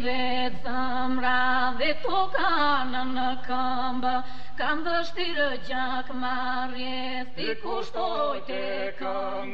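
Music: a solo voice singing a slow, ornamented chant-like melody in long held notes, gliding between pitches, over a low steady drone.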